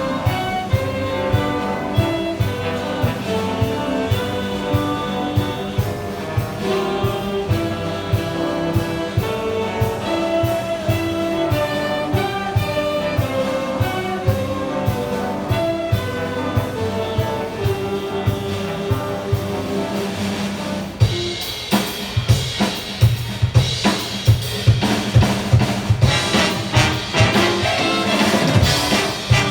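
Big band playing a jazz piece live: brass section with trumpets over a drum kit keeping a steady beat. About two-thirds of the way through, the band grows louder and fuller.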